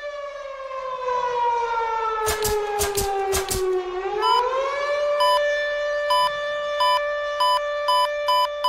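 Siren-like suspense sound effect: a wailing tone slides slowly down in pitch, rises again about four seconds in and holds steady, while a short beep pulses over it faster and faster. A few sharp clicks come about halfway through. It builds tension for the winner's announcement.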